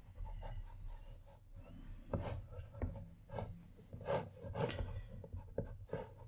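Pencil scratching on watercolour paper in short, uneven strokes as outlines are sketched.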